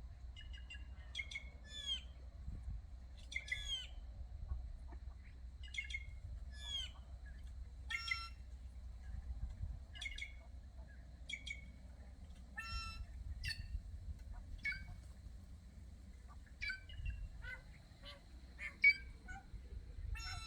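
A group of quem-quem birds giving harsh, squawking calls, some sweeping in pitch, repeated every second or two with one louder call near the end.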